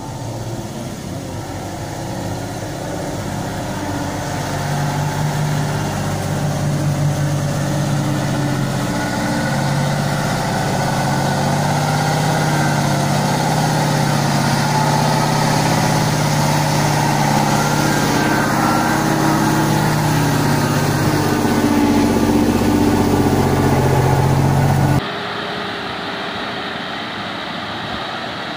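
Ural 6x6 truck's diesel engine working steadily as the truck wades through flood water, growing louder as it comes close. About 25 seconds in the sound cuts abruptly to a quieter rush of river water with wind on the microphone.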